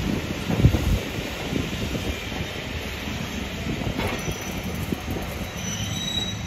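Steam locomotive and its passenger coaches running along the track, a steady rumble with irregular low thumps; faint high wheel squeal creeps in over the last couple of seconds.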